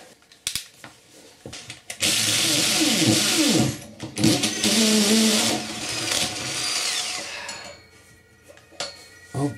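Power drill running in two bursts, the first about two seconds in and the second from about four to seven seconds, its motor pitch sagging and recovering under load. A larger bit is enlarging a pilot hole.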